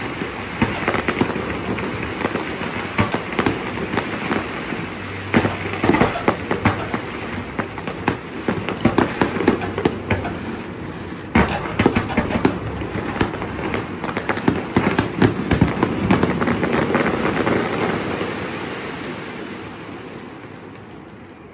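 Fireworks display: a dense run of overlapping bangs and crackling, with one sharper, louder bang about eleven seconds in. Near the end the crackle thins and fades away.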